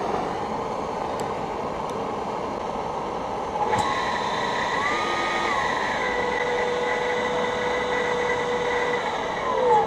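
Homemade electric jet engine's centrifugal compressor, spun by a brushless electric motor, running with a steady rush of air and a whine. After a click about four seconds in, whining tones come in and step up in pitch about a second later, and falling tones come near the end.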